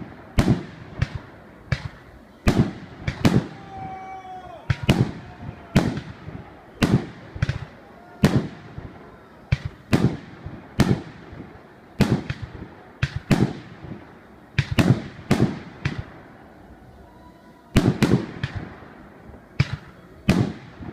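Aerial firework shells bursting in a rapid series of loud bangs, roughly one to two a second, each trailing off in a short echo.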